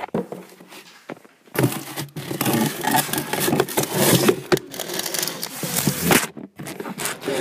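Close handling noise: the recording phone scraping and rubbing against cardboard as it is pushed into a cardboard box. It is fairly quiet for the first second and a half, then loud and continuous, with a short break about six seconds in.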